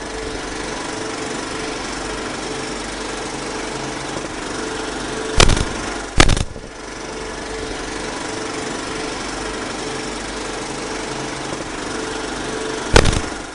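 Film projector sound effect: a steady mechanical clatter running throughout, with three loud hits, two close together about halfway through and one near the end.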